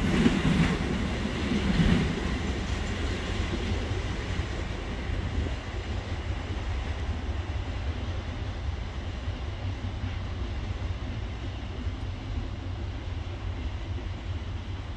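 Freight train of covered trash cars rolling away: wheel clatter on the rails, loudest in the first couple of seconds, fading into a steady low rumble as the train recedes.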